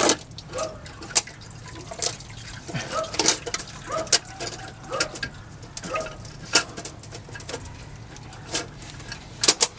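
Exhaust header being worked loose and pulled out of the engine bay by hand: scattered metal clanks and knocks, with short rising squeaks of metal rubbing on metal.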